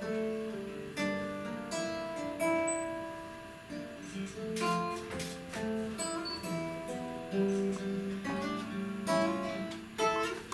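Acoustic guitar played in a slow, unhurried way: strummed chords and picked notes that ring out and fade before the next stroke.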